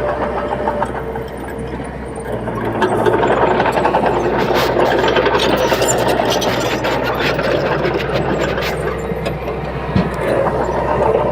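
Diesel engine of a bulldozer running steadily, getting louder about three seconds in, with scattered clanks and rattles and one sharp knock near the end.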